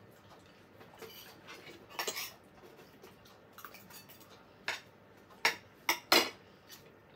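Metal fork clinking and scraping against a dinner plate during a meal. A few light clinks about two seconds in, then a run of sharper clinks in the second half.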